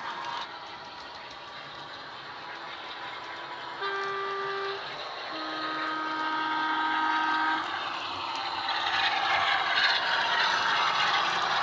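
Sound decoder and speaker of a Bachmann Class 46 model diesel locomotive playing a Class 46 sound file: a two-tone horn, a short high note about four seconds in, then a longer low note. After the horn the locomotive's sound and its running noise grow louder as the model comes closer.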